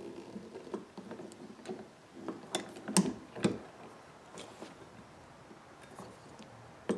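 Hand riveter being cranked on a 3/16-inch tri-grip blind rivet, pulling the mandrel: a string of clicks and knocks from the tool's handles and jaws, the loudest two about three seconds in, half a second apart.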